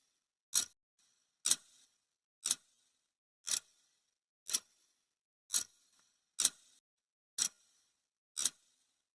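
Clock-tick sound effect of a countdown timer: sharp, dry ticks, one each second, nine in all.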